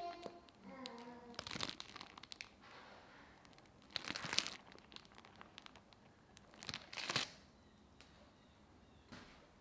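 Plastic piping bag crinkling in three bursts as it is squeezed to pipe marshmallow, the loudest a little over four seconds in. A brief squeaky, gliding sound comes in the first second.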